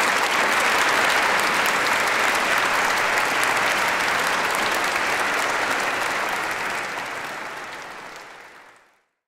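Large audience applauding steadily, the applause fading out over the last three seconds.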